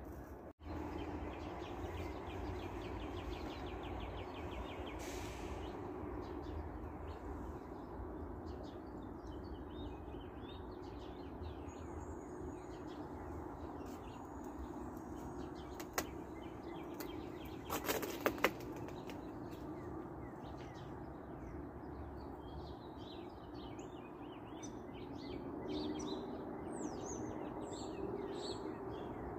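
Backyard ambience of small birds chirping in short high calls that grow busier through the second half, over a steady low background noise. A fast run of ticks comes a couple of seconds in, and a few sharp clicks come near the middle.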